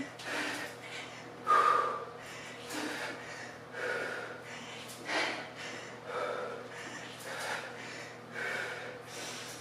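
A woman breathing hard in rhythm with double-arm kettlebell swings, one sharp breath with each swing, about one a second.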